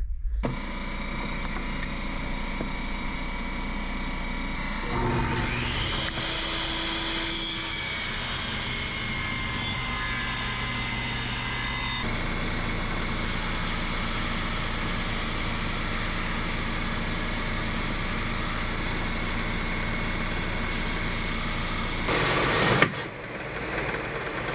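A small power tool running steadily, cutting out the fins for a handmade swimbait. The tone changes abruptly a few times, as between separate stretches of cutting.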